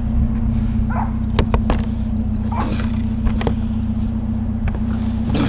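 A dog gives three short barks over a vehicle engine idling steadily, with a few sharp clicks in between.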